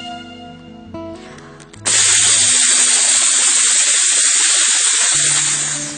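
Vocal mimicry of a train: a loud, steady hiss like a locomotive letting off steam or air brakes, starting abruptly about two seconds in and lasting about four seconds, after a few faint tones.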